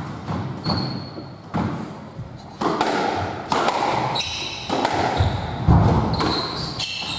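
Squash rally: a succession of sharp hits of the ball off racket and court walls, with players' shoes squeaking briefly on the wooden floor. A heavier low thud comes about five to six seconds in.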